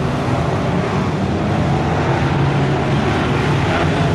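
A pack of BriSCA F1 stock cars racing, their V8 engines together making a steady, loud drone.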